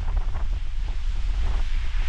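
Ocean surf washing in, half masked by wind buffeting the microphone with a heavy low rumble.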